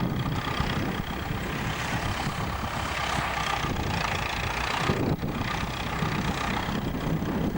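Massey-Ferguson 65 tractor's engine running steadily while ploughing.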